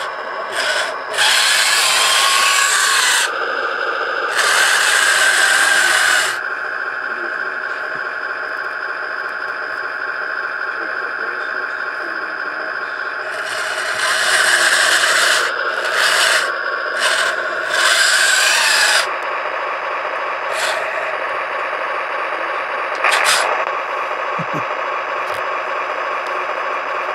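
Henglong RC tank electronics in a 1/25 Tamiya Jagdpanther model: the sound unit plays a steady engine hum, with several louder rasping stretches of a second or two each as the tank's drive runs.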